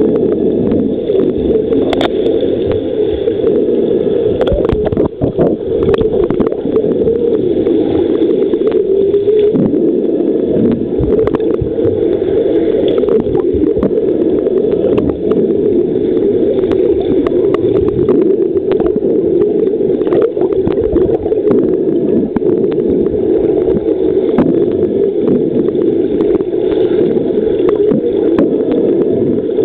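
Pool water heard underwater: a steady muffled rushing and bubbling stirred up by front crawl swimmers, with scattered short clicks.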